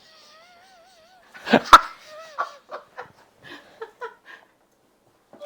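A wirehaired pointing griffon dog whining in a wavering pitch. About a second and a half in comes a sharp knock, followed by a string of short whimpers and yips.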